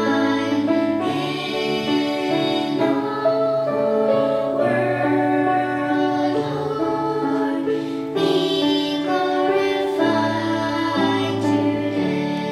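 Three young girls singing a worship song together into a microphone, over a held instrumental accompaniment.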